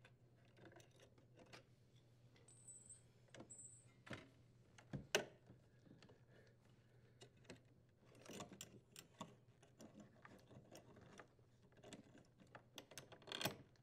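Near silence with faint, scattered metallic clicks and rattles as a strain relief nut is unthreaded and the power cable's strain relief and wires are pulled out of a dishwasher's metal junction box; the clearest click comes about five seconds in.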